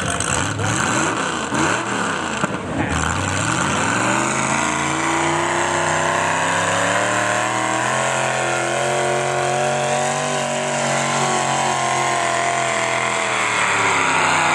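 Modified pulling tractor's engine at full throttle, hauling a weight-transfer sled with its front wheels up. The pitch wavers for the first few seconds, climbs about four seconds in, holds high, and then drops near the end.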